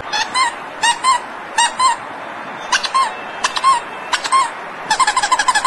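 Short, high squeak sound effects, mostly in pairs with gaps between them, then a quick run of squeaks near the end, as the opening of a comic dance track.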